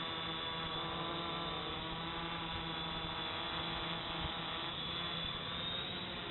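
Small electric multirotor drone hovering: its brushless motors and propellers give a steady hum with several tones as it holds position in GPS loiter mode against the wind.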